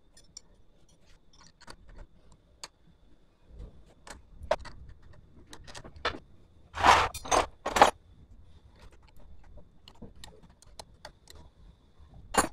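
Small metal motorcycle parts and a spanner clinking and rattling in the hands while a carburettor and intake manifold are fitted, with scattered light clicks and a louder clatter of three strokes about seven seconds in.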